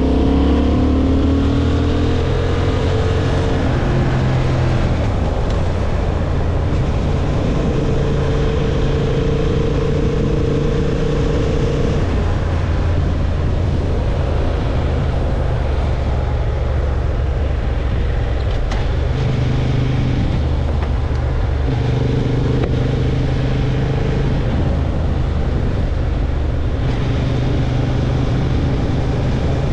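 Honda CB750 Hornet's parallel-twin engine running as the motorcycle rides along, with wind noise over it. The engine note rises in the first couple of seconds as it accelerates, then holds at a fairly steady cruise with a few shifts in pitch as the throttle changes.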